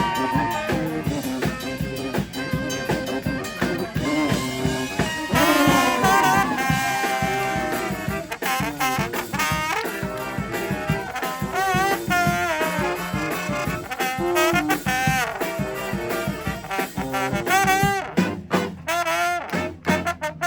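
A street brass band playing an instrumental tune: trumpets and trombones carry a melody over a steady percussion beat.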